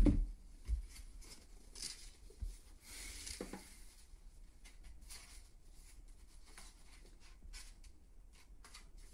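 A book being handled and leafed through: a soft thump at the start, then paper pages rustling and flicking with small taps and clicks.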